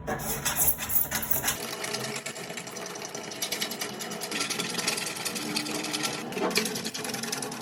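A small power tool running steadily with a fast, even rattle of clicks.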